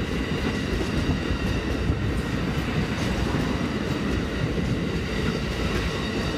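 Amtrak bilevel passenger cars rolling past on the rails, a steady rumble of steel wheels on track that holds even throughout.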